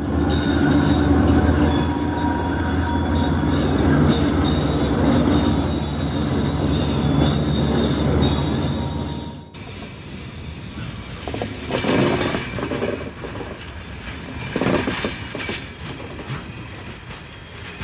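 Aurizon freight locomotive passing at close range, a steady low engine sound with high-pitched squealing tones over it. About halfway through, the sound cuts off abruptly to something much quieter with a couple of swells.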